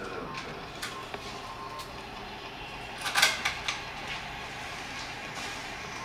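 Light clicks and knocks from handling, over a steady room hiss, with a short, louder clatter about three seconds in.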